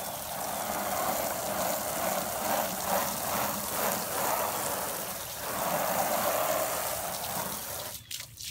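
Garden hose spraying water against vinyl siding, a thumb over its open end giving a steady hiss and splatter that swells and dips. It cuts off suddenly near the end.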